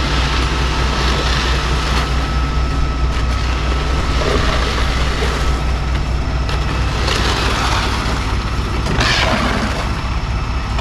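Concrete mixer truck's engine running with a steady low hum while concrete is discharged. Bursts of rushing noise come from about seven seconds in.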